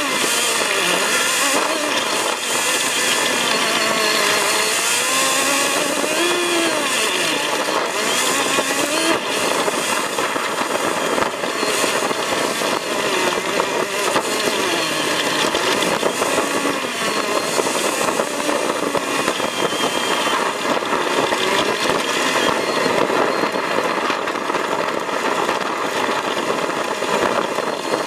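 Off-road vehicle's engine driving over a rough dirt track, its pitch rising and falling again and again as the revs change, with steady road and tyre noise. The recording is speeded up, which raises the pitch and quickens the changes.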